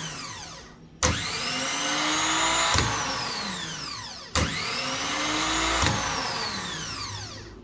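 Denso starter motor from a 2001 Ford Fiesta run on the bench, twice: each time its solenoid clanks in and the motor spins up with a rising whine, then clicks out and coasts down with a falling whine. The freshly repaired solenoid contacts are switching the motor properly.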